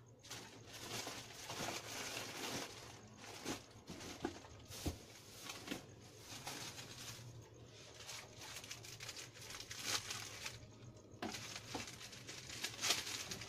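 Plastic snack packets and sachet strips crinkling and rustling as they are handled, in bursts with a few sharper clicks and a brief lull about three quarters of the way through.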